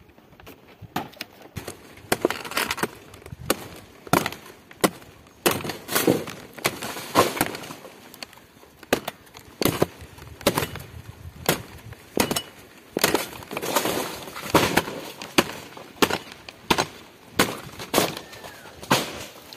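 A knife chopping into the fibrous stalk of a palmyra palm fruit bunch, in a long series of sharp blows about one or two a second.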